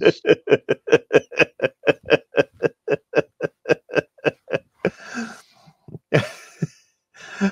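A man laughing hard in a rapid, even run of ha-ha pulses, about five a second. After about five seconds it trails off into a few breathy exhales.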